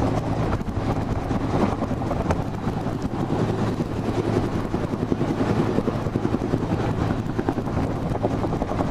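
Search-and-rescue helicopter hovering low overhead, its rotor running steadily, with rotor wash buffeting the microphone.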